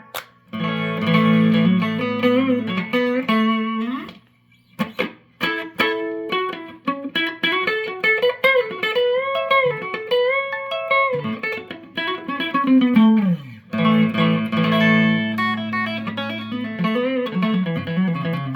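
Electric guitar played through a Fender Bassbreaker 30R amplifier's clean channel, bright switch off, with a clean, chiming tone. Strummed chords ring out, break off about four seconds in, then give way to single-note lines with notes bent in pitch, and chords return near the end.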